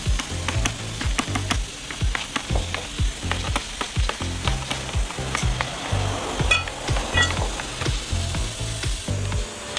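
Background music with a steady beat and a low bassline, over a steady crackling hiss.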